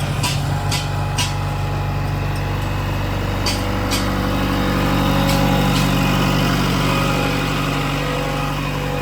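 JCB 3DX backhoe loader's diesel engine running steadily, swelling slightly about halfway through, with several sharp clicks over it in the first half.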